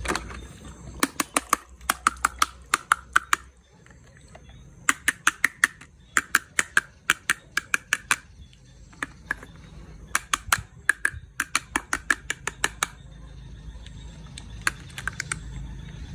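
Rapid runs of sharp plastic clicks, about eight to ten a second, in three bursts of two to three seconds each with short pauses between and a brief fourth run near the end, like a plastic toy mechanism being worked.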